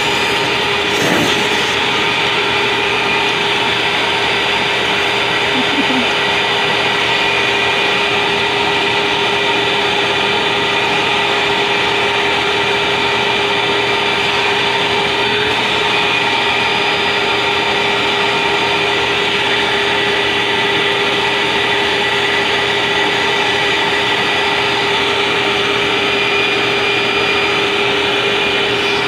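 Vacuum cleaner running steadily: a constant motor drone with a steady whine held at one pitch.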